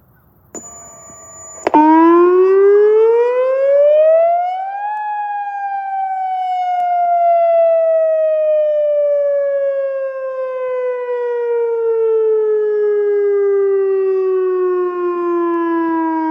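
A short electronic buzz from a radio, then an outdoor tornado warning siren starts: its pitch climbs for about three seconds, then falls slowly over about eleven seconds in one long wail.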